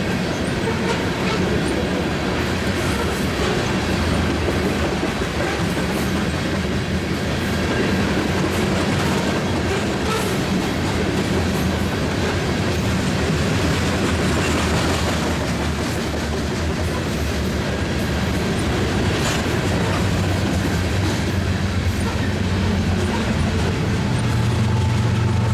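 Grain train's freight cars rolling past slowly, steel wheels clicking and clattering over the rail joints with a steady low rumble.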